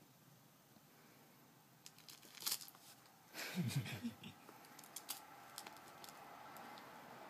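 A cat wrestling a plush toy on carpet: rustling and crinkling as it grabs, bites and kicks the toy, with scattered light clicks and a louder scuffle about three and a half seconds in.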